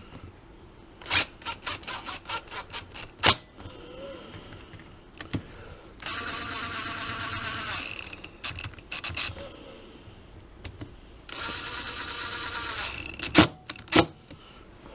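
Small electric motor, a cordless screwdriver, running in two spells of about two seconds each while driving carburetor screws back in. Light clicks of small metal parts come before, and two sharp knocks come near the end.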